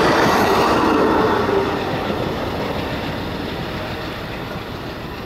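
Wheels of the last passenger and baggage cars of an Amtrak train rolling past on the rails. The sound fades steadily from about a second and a half in as the tail end of the train moves away.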